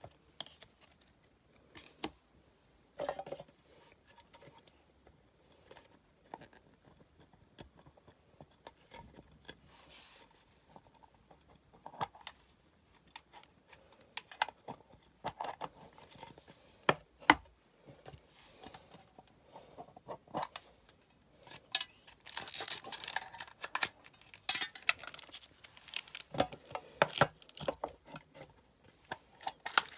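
Football trading cards and their paper-and-foil packets being handled by hand: scattered sharp clicks and light rustles as cards are flicked and sorted, then, from about two-thirds of the way through, denser, louder crinkling of a packet wrapper.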